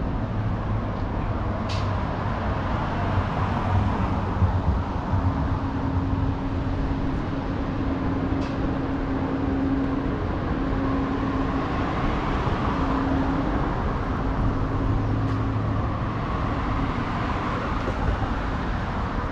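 Downtown street ambience: a steady wash of traffic noise with a vehicle engine humming for several seconds in the middle, and a few faint clicks.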